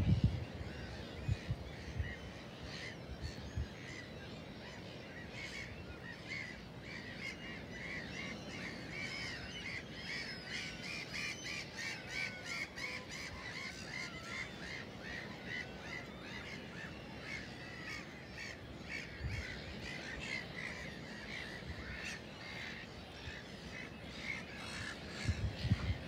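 A big feeding flock of gulls calling together, a dense chorus of short overlapping calls that is fullest around the middle. A few low bumps sound near the start and the end.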